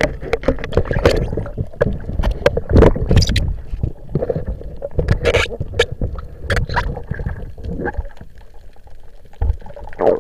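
Water rushing and churning around an underwater camera as a diver swims, with many irregular sharp clicks and knocks.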